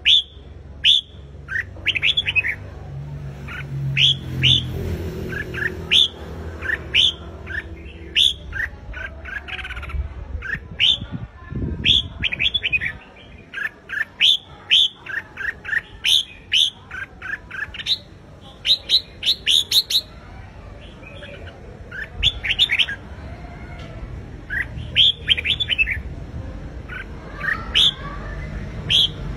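Red-whiskered bulbul singing: loud, quick phrases of short whistled notes that sweep up and down, broken by brief pauses.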